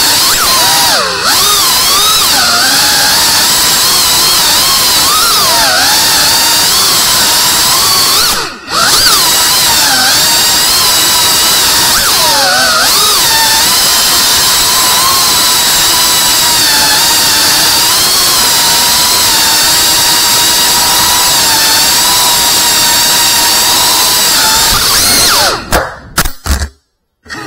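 Ducted whoop FPV drone's small brushless motors and propellers whining, the pitch rising and falling with the throttle as it flies. The sound dips briefly about eight seconds in, then stutters and cuts out almost completely near the end.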